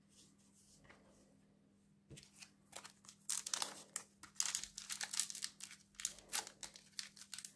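Foil trading card pack wrapper crinkling and tearing as it is pulled open, in a quick run of sharp crackles starting about two seconds in.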